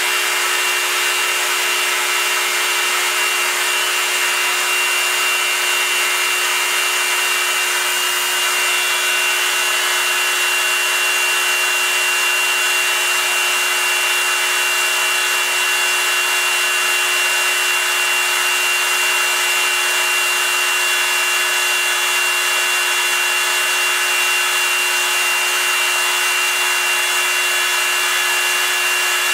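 CNC-converted Proxxon MF 70 micro milling machine cutting aluminium with a fine cutter: a steady spindle whine with a high tone over the hiss of the cut.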